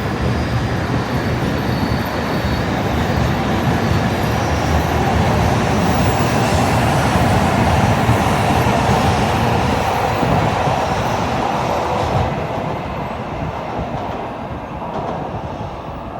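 Shinkansen bullet train running past the platform: a loud steady rush of wheels and air that peaks about halfway and fades over the last few seconds as it moves away.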